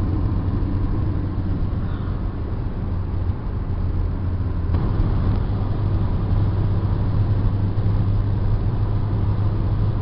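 Steady drone of a car driving at road speed, engine and tyre noise heard from inside the cabin. The low hum shifts slightly in pitch about halfway through.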